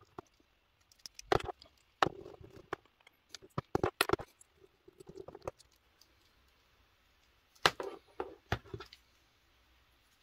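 Sharp plastic clicks and light knocks from handling a small plastic action figure, moving its limbs and joints, in several short clusters with soft rustling between.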